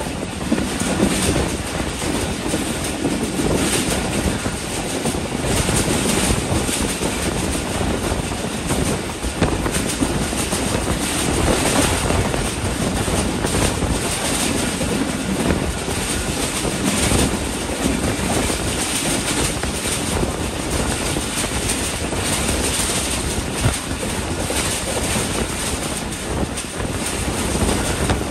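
Passenger train running at speed, heard from an open coach doorway: a steady rush of wind with the wheels rumbling and clattering over the rails.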